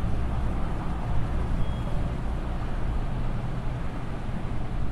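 Steady low rumble with an even hiss underneath: background noise with no distinct events.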